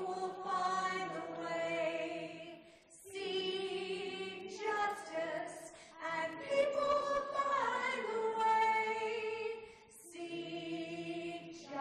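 Many voices singing together in unison, a simple melody in held phrases of a few seconds separated by short breaths.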